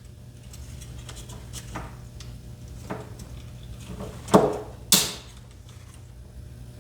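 A few light clicks and knocks from small plastic controller parts being handled, the loudest two about four and five seconds in, over a steady low hum.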